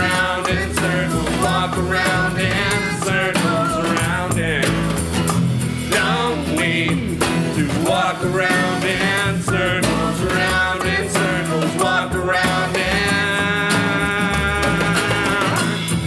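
A small acoustic band playing a song: a strummed acoustic guitar over a plucked upright double bass, with a voice singing the melody.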